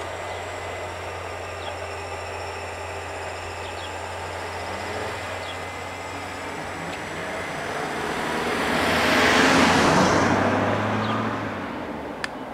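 A car drives across the level crossing and passes close by, its tyre and engine noise swelling to a peak about three-quarters of the way through and then fading. A low steady hum runs underneath, and a single sharp click comes near the end.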